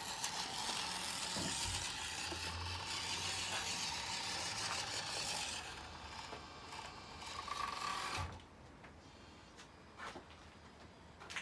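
Mini RC rock crawler's small electric motor and gearbox whirring as it crawls over rocks. The whirring stops suddenly about eight seconds in, leaving only a few faint clicks.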